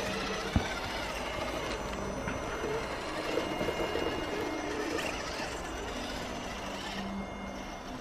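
Radio-controlled Traxxas TRX-4 crawler's electric motor and geared drivetrain whining steadily as the truck pushes through deep snow, with a single sharp knock about half a second in.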